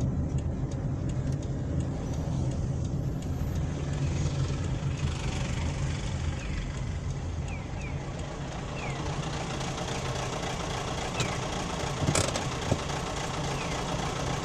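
A car's engine and road noise heard from inside the cabin, a steady low hum, with the turn-signal relay ticking evenly at about three clicks a second for the first few seconds. A single sharp knock comes near the end.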